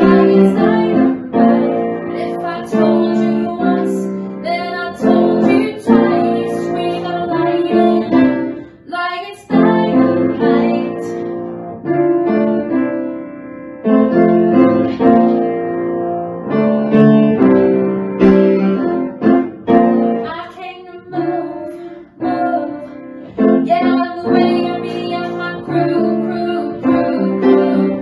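Music: a woman singing with piano accompaniment.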